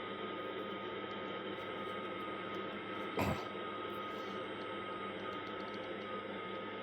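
Steady hiss with a faint constant high whine and a low hum, broken once about three seconds in by a short thump.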